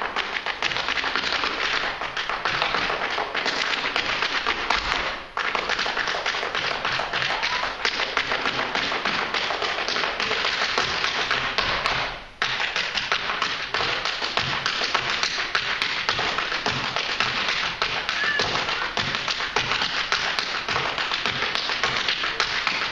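Two Irish dancers' hard shoes beating fast, dense rhythms on a wooden stage floor, danced a cappella with no music. The beating breaks off briefly twice, about five and about twelve seconds in.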